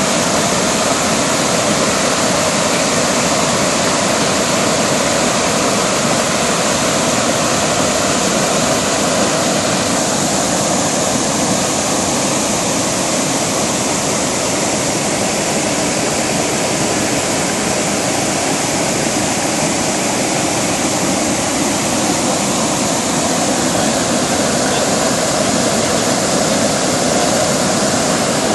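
Jordan River water rushing steadily over rapids, a loud even roar of flowing water with no pauses.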